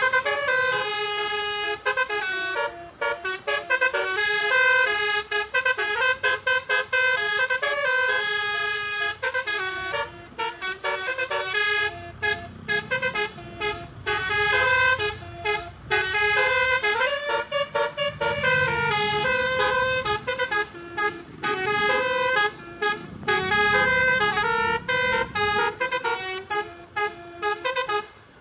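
A tour bus's telolet horn, a set of electric multi-tone horns, playing a long run of quick stepping melodic notes with short breaks between phrases. A low rumble runs beneath part of it.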